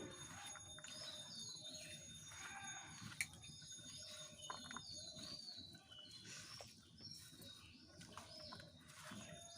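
Faint birds chirping: many short, high calls that fall in pitch, repeating throughout, with a single sharp click about three seconds in.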